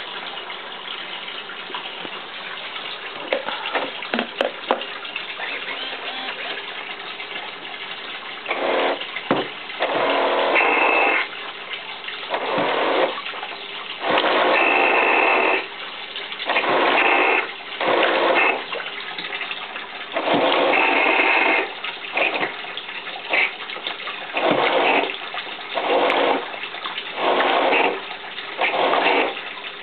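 Electric RC boat's motor and propeller run in repeated short throttle bursts, each surge a second or so of rushing, water-churning noise, some with a high whine. Before the bursts begin there is a steady hiss with a few clicks.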